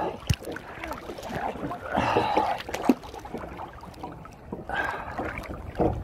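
Sea water splashing and sloshing around a camera held at the surface by a swimmer, with a louder splash about two seconds in and a few sharp taps of water on the microphone.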